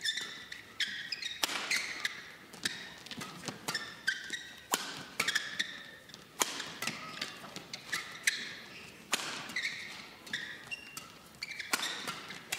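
Badminton rackets striking a shuttlecock back and forth in a fast doubles rally, a sharp hit roughly every second. Short high squeaks of players' shoes on the court mat come between the hits.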